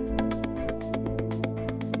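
Background music with a steady, quick beat and plucked string notes.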